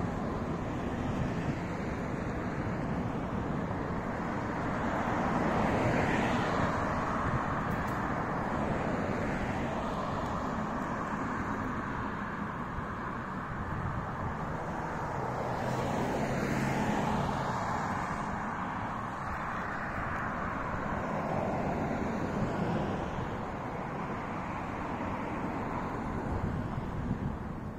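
Cars passing on a street, each swelling up and fading away over a steady background of road noise; it happens several times.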